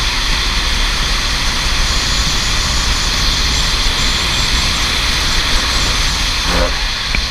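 Racing kart running at speed: a steady, loud mix of engine noise and wind rush on the onboard microphone.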